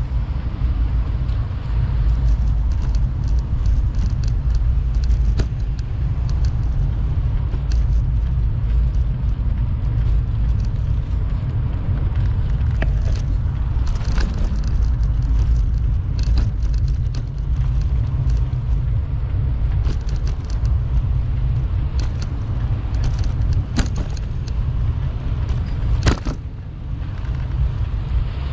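Bicycle ride: steady low rumble of wind and road vibration on the bike camera's microphone, with scattered small clicks and rattles from bumps and one louder knock near the end.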